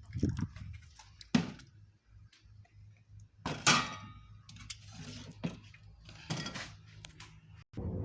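Kitchen clatter: several separate knocks and clinks of kitchenware over a low hum, the loudest a little past the middle.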